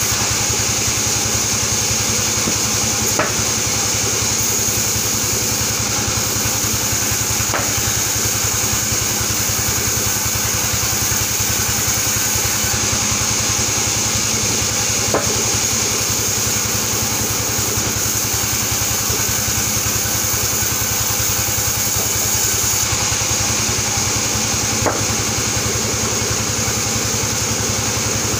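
A band sawmill running steadily while Albasia timber is sawn, a continuous machine drone with a high whine over it. A few short, sharp knocks come at intervals.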